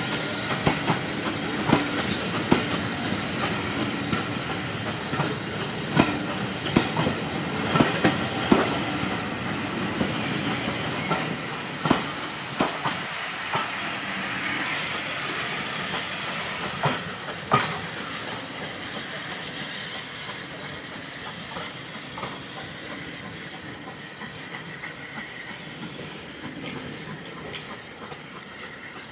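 Railway passenger coaches rolling past, their wheels clicking over rail joints, then fading steadily as the train moves away.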